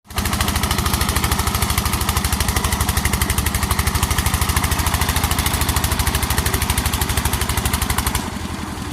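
Engine of a rice-cutting machine running steadily with a fast, even beat of about a dozen pulses a second, easing off slightly near the end.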